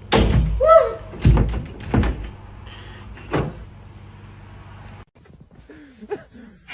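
Four heavy thumps or bangs, each sharp and sudden, spread over about three and a half seconds, with a short cry that rises and falls near the first one.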